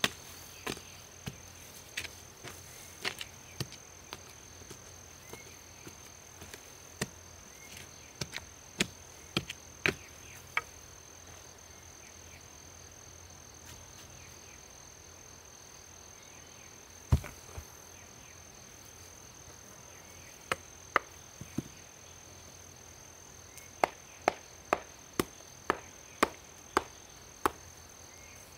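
A wooden digging stick jabbed into stony soil, giving sharp knocks at uneven intervals, with one heavy thud about halfway through. Near the end comes a quick run of knocks, about two a second, as a hand-held stone strikes a dug-up lump of iron ore. A steady high insect drone runs underneath.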